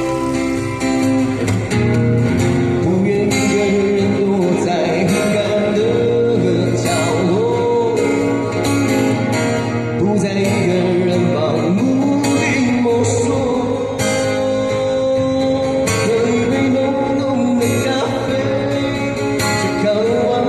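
Mandarin love ballad performed live, with acoustic guitar accompaniment and a melody line that slides and bends in pitch between sung lines.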